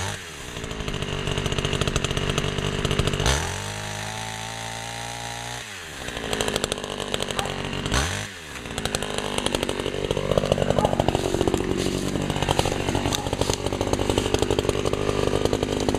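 Two-stroke chainsaw, the early-1970s Sears Craftsman 3.75 Power Sharp, revved to high speed and then dropped back to idle for a couple of seconds. It revs up again, dips briefly about eight seconds in, and then runs at high speed with a wavering pitch to the end.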